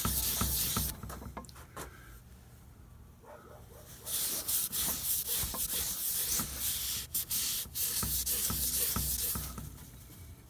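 A cloth rag rubbed and wiped around inside the aluminum cross-feed bore of a brake lathe, scrubbing off hardened grease with lacquer thinner. A second of rubbing, a pause of about three seconds, then about five more seconds of rubbing.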